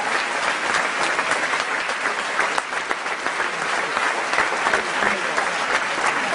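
Large theatre audience applauding: dense, steady clapping from many hands, with no break.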